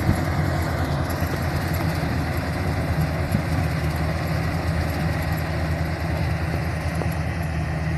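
Rice combine harvester's engine running steadily at an even, unchanging pitch.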